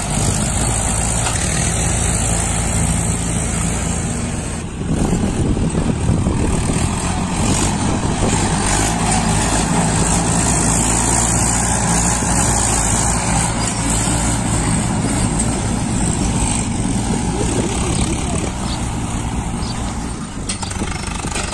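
Small motor and gear drive of a homemade toy tractor running steadily as it pulls a loaded trolley, a continuous hum with a high whine. It dips briefly about five seconds in, then runs a little louder.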